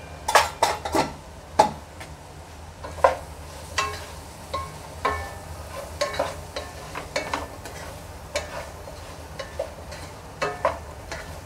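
A spoon stirring vegetables and spices frying in a pan, with irregular clinks and scrapes against the pan, most frequent in the first two seconds, over a faint sizzle.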